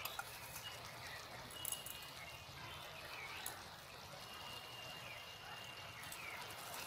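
Cauliflower curry simmering gently in a steel kadai: a faint bubbling hiss, with a couple of light clicks.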